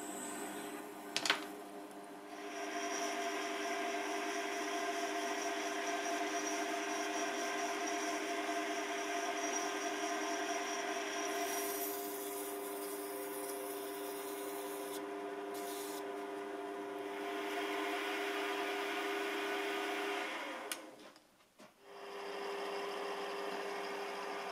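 Small benchtop metal lathe running steadily, its motor and gearing giving a constant multi-pitched hum, while cutting and abrasive paper rub on the spinning metal workpiece. There is a sharp click about a second in and a short break in the sound near the end.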